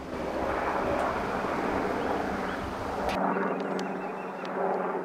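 Sikorsky UH-60 Black Hawk helicopter's rotor and engine noise, mixed with wind buffeting the microphone. About three seconds in, the sound cuts abruptly to a thinner, steadier recording without the low rumble.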